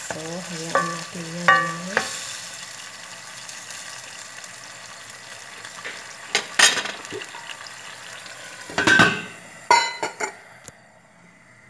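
Water poured into a hot pan of meatballs in tomato paste, sizzling steadily, with a few short squeaky tones in the first two seconds. Metal clanks follow as the lid is set on the pan, and the sizzle goes quiet near the end once it is covered.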